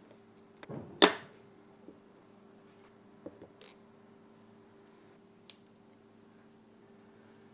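Small magnets snapping into place with sharp clicks while being fitted, two at a time, into holes in a brass disc. The loudest click comes about a second in, right after a short scrape. Lighter ticks follow around three seconds in, then another sharp click a little past halfway.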